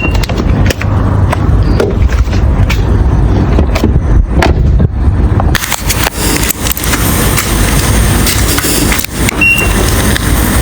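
A car in motion: a steady low rumble with scattered knocks and rattles, the hiss growing louder about halfway through. A short electronic beep sounds about nine seconds in.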